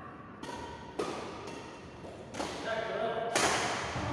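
Badminton rackets striking a shuttlecock in a rally: about five sharp hits at uneven spacing, each ringing briefly in the hall's echo.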